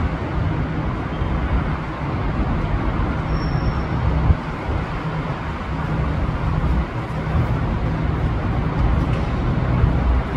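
Steady low rumbling din of a busy railway station platform.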